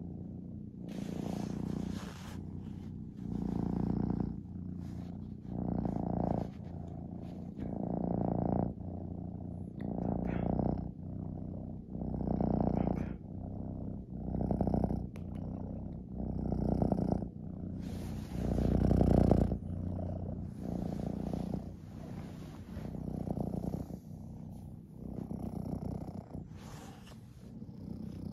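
Tabby cat purring up close: a continuous low, pulsing rumble that swells and eases with each breath, about every two seconds.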